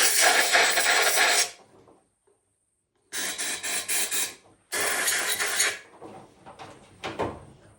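Three bursts of rough, hissing rubbing noise, each about a second long with short pauses between, as a fuel funnel with a built-in filter is cleaned.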